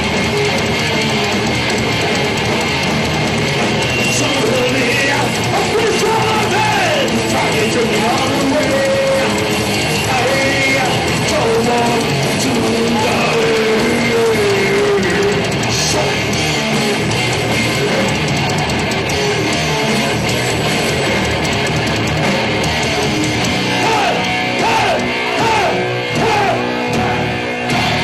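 Heavy metal band playing live: a lead electric guitar line with bent, gliding notes over distorted rhythm guitar, bass and drums.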